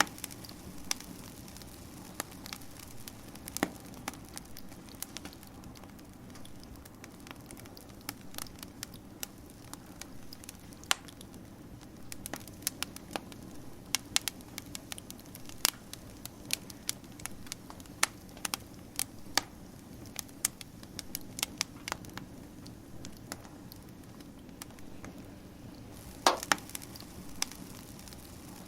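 Wood fire crackling: irregular sharp pops and snaps over a steady low rush, thicker in the middle stretch, with a cluster of louder pops near the end.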